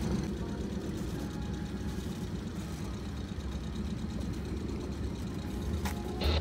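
Boat engines idling: a steady low rumble.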